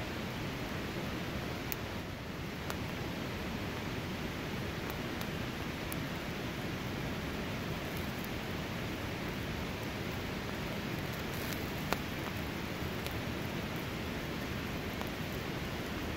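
Wood campfire burning: a steady rushing hiss of flames with scattered sharp crackles and pops from the burning sticks, one louder pop about twelve seconds in.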